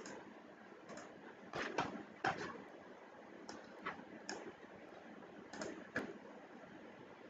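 Computer mouse clicks, about a dozen short sharp clicks, some in quick pairs, over a faint steady hiss.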